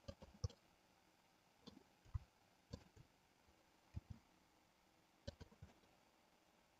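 Faint, scattered clicks of a computer mouse and keyboard, about ten of them at irregular intervals, over near silence.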